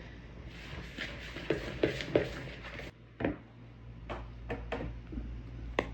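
Kitchen utensils and dishes clattering and knocking: a busy run of clinks for about three seconds, then a few separate sharp clicks.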